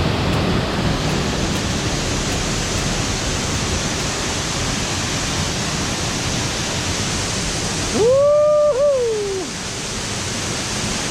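Gorge Falls waterfall pouring steadily into the swimming hole, a constant rushing roar. About eight seconds in, a loud drawn-out vocal call, a person's 'ooh', rises, holds with a brief wobble and falls away over about a second and a half.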